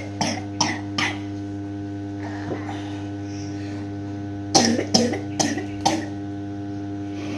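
A child coughing in two short fits: three coughs at the start and four more from about four and a half seconds in. Underneath is a steady hum. The family blames the cough on drinking too many iced drinks.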